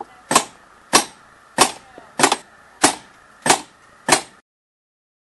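Hammer peening a scythe blade's edge on an anvil: sharp metal strikes in a steady rhythm, about one and a half a second, seven in all. They cut off suddenly a little over four seconds in.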